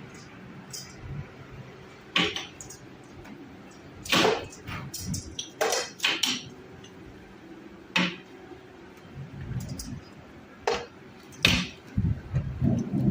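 A series of irregular sharp knocks and clinks, about eight in all, spaced unevenly, over a faint low hum.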